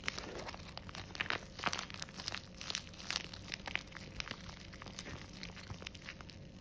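Clear plastic bag crinkling around a soft squishy toy as fingers squeeze and knead it through the bag, a quick irregular run of crackles that thins out near the end.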